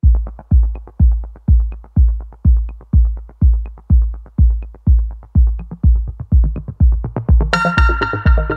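Electronic background music with a steady kick-drum beat of about two beats a second; synth chords come in about seven and a half seconds in.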